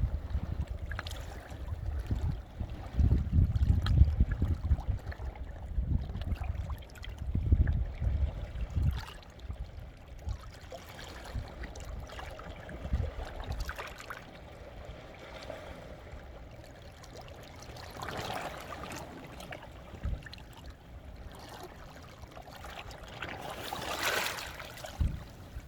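Sea waves washing in over basalt shore rocks and trickling back between them, with heavy low rumbles in the first half and two louder washes swelling up near the end.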